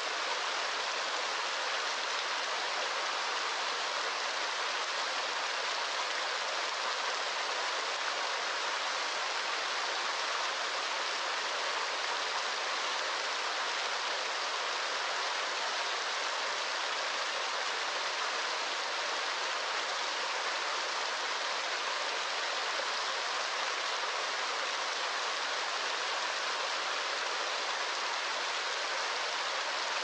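A small waterfall splashing into a shallow rock pool: a steady, even hiss of falling water that does not change.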